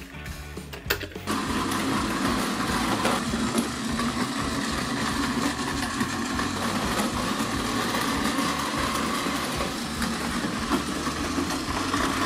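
Battery-powered Plarail toy train running on a wooden track: a few clicks of handling, then about a second in its small electric motor and gears start a steady whir that keeps on, with occasional faint ticks.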